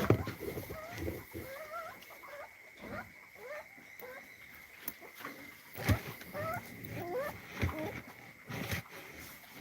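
A puppy whimpering and whining in short, wavering high-pitched calls that come in little clusters, with a few knocks and rustles; a faint steady high tone runs underneath.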